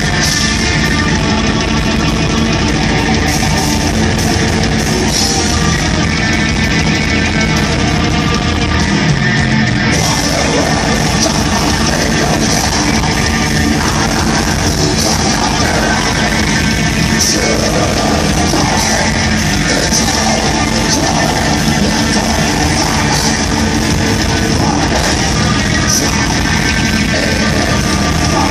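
Black metal band playing live at full volume: distorted electric guitars and drums in a dense, unbroken wall of sound, with a change in the riff about ten seconds in, heard from the audience.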